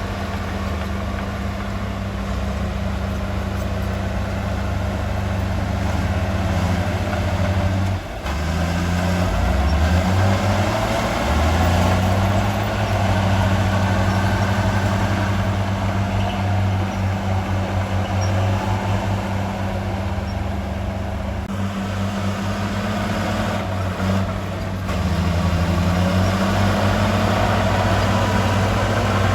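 Heavy diesel earthmoving machine running under load, its engine note shifting up and down as the revs change, with brief drops in level about eight seconds in and again later.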